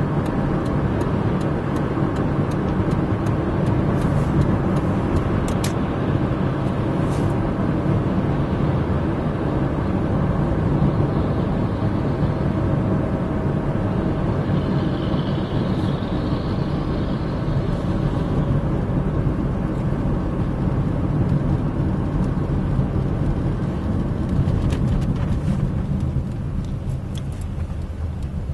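Car cabin noise while driving: steady engine and tyre rumble heard from inside the car, easing off slightly near the end.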